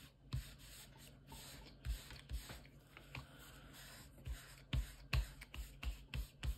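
A paper tissue rubbing and dabbing over a paper piece as it is pressed down onto a journal cover. Irregular dull knocks of the hands pressing on the tabletop come closer together in the second half.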